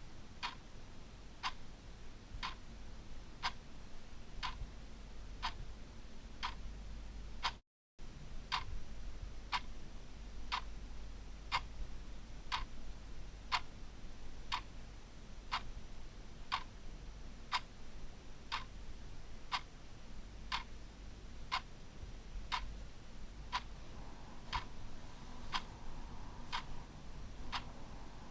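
Clock ticking steadily, about one tick a second, with a brief total dropout in the sound a little under eight seconds in.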